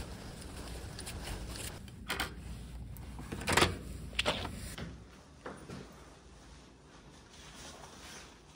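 Hotel room door being unlocked and opened: a few sharp clicks and clunks of the lock and latch, the loudest about three and a half seconds in.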